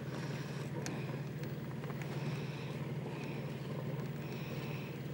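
Boat engine idling with a steady low hum, with a faint swish that recurs about once a second.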